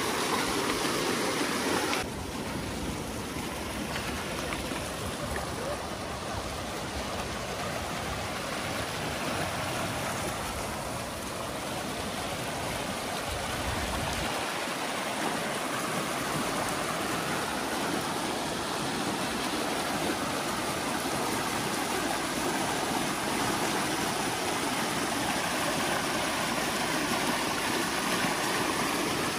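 Pond water draining through a freshly dug earth ditch, a fast, steady rush of muddy water.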